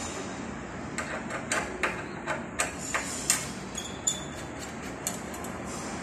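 Sharp, irregular metal clicks and taps, about a dozen, most of them packed between one and three and a half seconds in: a T20 Torx screwdriver working a long screw out of a Vingcard magnetic door lock's stainless steel plate.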